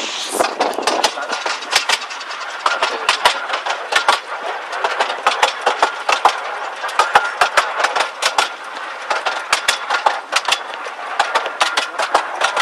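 Miniature railway train running along its track, heard from inside an open carriage: a steady running rumble broken by many sharp, irregular clicks and knocks as the wheels clatter and the carriage rattles.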